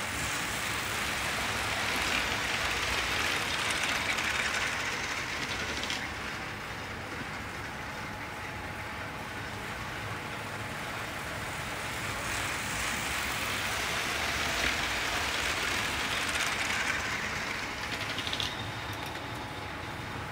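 Hornby live steam model of the LNER A3 Papyrus running on the track with a long rake of coaches: a steady steam hiss over the rumble of wheels on rails. It grows louder and fades back twice.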